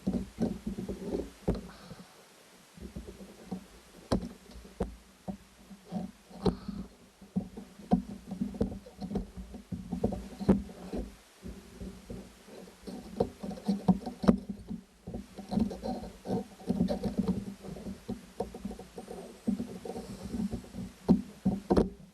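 Irregular clicks, taps and scrapes of hands and tools working at the wire terminals of a ride-on toy's wheel motor while they are being de-soldered.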